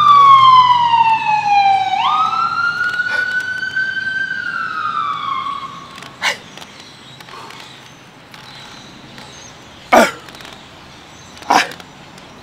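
An emergency vehicle siren wailing in slow falling and rising sweeps, fading out about halfway through. Then three sharp knocks, the last two, the loudest, about a second and a half apart near the end.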